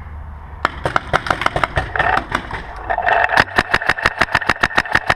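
A 2007 Proto Rail paintball marker firing in rapid strings. Scattered shots begin about half a second in, then give way to a fast, even run of about eight shots a second near the end.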